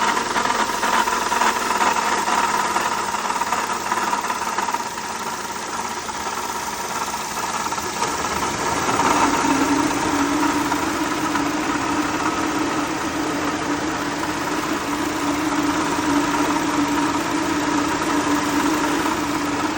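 2007 Honda Accord engine idling with a rattle, which was diagnosed as the water pump. A steady low tone joins in about halfway through.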